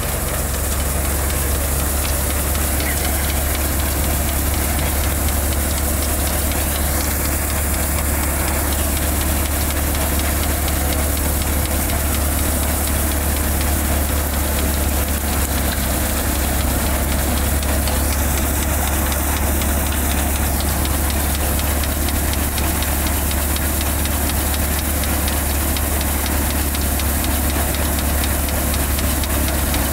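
Black gram thresher running steadily: a constant low engine hum under an even, noisy hiss from the threshing machinery.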